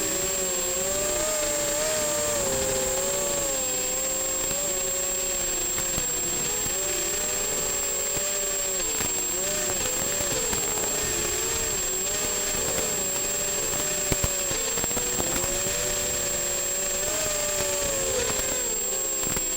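Eachine 250 racing quadcopter's motors and propellers whirring in flight, the pitch wavering up and down as the throttle changes, over a steady hiss and a thin high whine.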